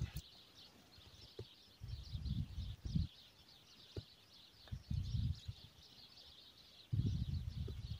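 Many small birds chirping continuously in a quick, dense chatter. Three short low rumbles on the microphone come about two, five and seven seconds in, each lasting about half a second to a second.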